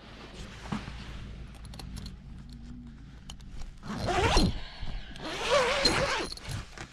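Bedding and tent fabric rustling, then a tent door zipper pulled open in two longer drags, about four seconds in and again about five to six seconds in.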